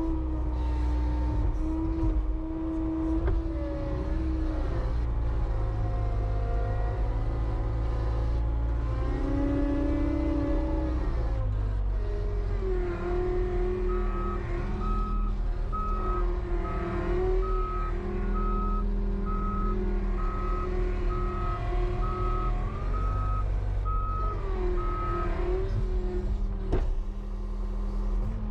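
John Deere 318G skid steer's 61 hp diesel engine running under load, its speed rising and falling as the loader works. For a stretch in the middle its reversing alarm beeps about once a second while the machine backs up.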